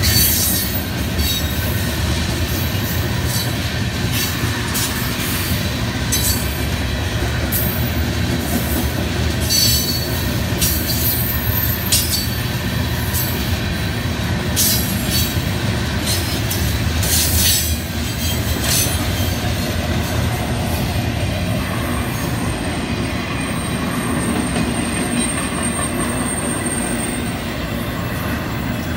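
Florida East Coast Railway freight cars rolling past at a grade crossing: a steady, loud rumble of steel wheels on rail, with irregular clanks and clicks through the first two-thirds. A thin, high, steady squeal comes in later on.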